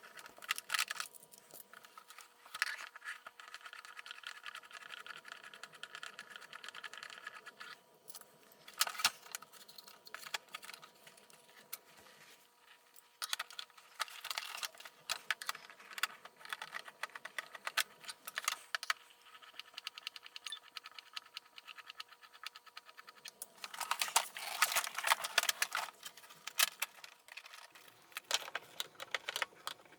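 Small clicks and rattles of hand work on a plastic vacuum cleaner housing: a screwdriver turning out screws and plastic parts being handled. There are dense clusters of clicking, the busiest stretch about three-quarters of the way through.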